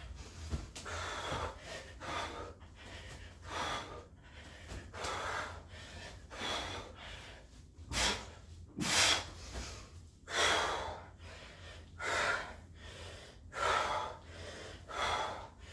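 A man breathing hard from exertion mid-burpee set: heavy, rhythmic breaths about one a second, louder from about halfway through.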